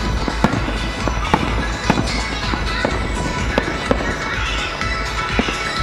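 Aerial firework shells bursting overhead in sharp bangs, about one a second, over loud music playing.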